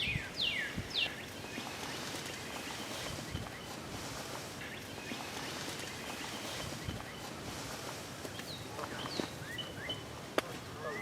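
A songbird singing a run of quick, falling whistled notes at the start and a few more near the end, over steady outdoor background hiss; a single sharp click comes near the end.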